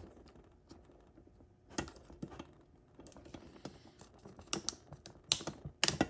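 Scattered light clicks and scrapes as a small plastic fire alarm mini module is handled and pried apart by hand, with a sharper click about two seconds in and a quick cluster of clicks near the end.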